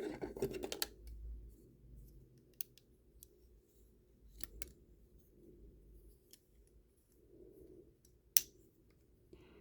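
Lego plastic pieces being handled: scattered sharp little clicks and taps, with a soft rustle in the first second and the loudest click near the end.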